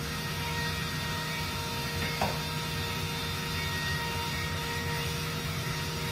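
Roland DWX-52DC dental milling machine running: a steady mechanical hum with a few constant tones and a brief chirp about two seconds in.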